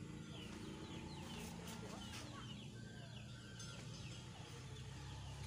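Faint outdoor birdsong of repeated short chirps over a low steady hum, with a few light clicks about a second and a half in.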